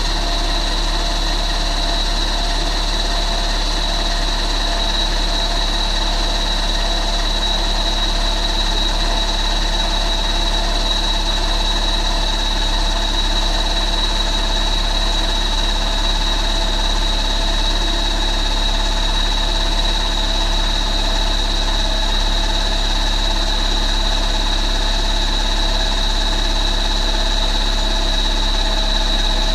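Turbocharged four-cylinder car engine idling steadily on its first start-up, with a steady high whine over the running.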